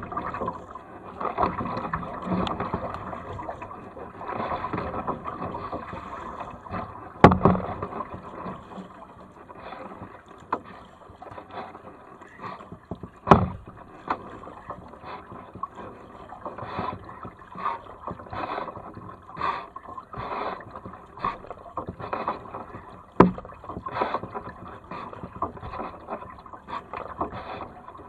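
Double-bladed kayak paddle strokes, the blades dipping and splashing into the water about once a second as the kayak is paddled along. Three sharp knocks stand out above the strokes, the loudest sounds.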